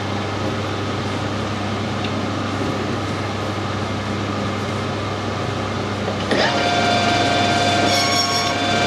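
Metal lathe running while brass is machined: a steady mechanical hum, joined about six seconds in by a sudden, steady high-pitched whine that holds.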